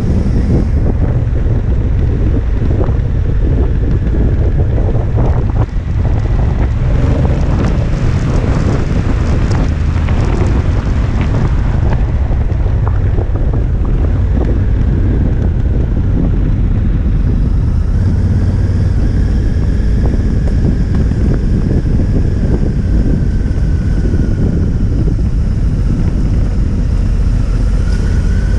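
Wind buffeting the microphone of a camera on a Honda Africa Twin riding a gravel road, as a steady low rumble, with the motorcycle's engine running underneath. A stretch of clicks and crackle from the gravel comes a few seconds in.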